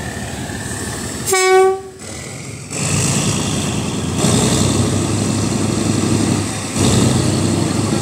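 Diesel locomotive horn sounding one short, loud blast about a second in, followed by the locomotive's engine running and growing louder as it draws alongside.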